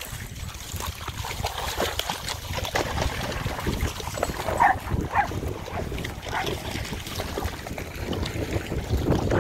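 Dogs splashing through water, with wind rumbling on the microphone; a dog gives a few short, high yelps about halfway through.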